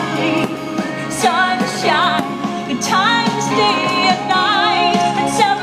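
Pop song with a vocalist singing over an instrumental backing track: the fireworks show's soundtrack.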